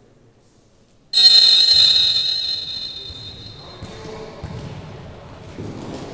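A referee's whistle blown once, long and loud, about a second in to start the futsal match, its sound hanging on in the hall's echo as it fades. Then the ball thuds a few times as it is kicked and bounces on the court.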